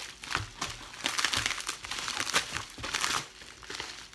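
Crinkly packaging of a subscription bag being handled and pulled open, in a run of irregular crackles that eases off about three seconds in.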